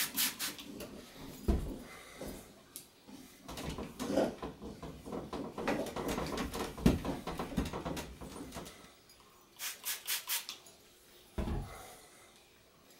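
Rag wiping citrus degreaser off the upper tubes of a RockShox Indy C suspension fork: irregular rubbing and handling noises with occasional knocks, and a quick run of strokes about ten seconds in.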